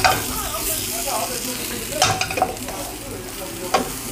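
Sliced potatoes and onions sizzling as they fry in a skillet, with a spatula scraping and knocking against the pan a few times as they are stirred.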